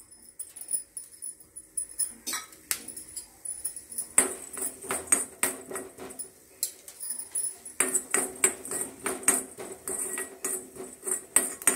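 Coriander seeds roasting in a hot iron kadai, crackling and popping, the pops getting denser as the seeds heat up. A steel spoon stirs and scrapes against the pan near the end.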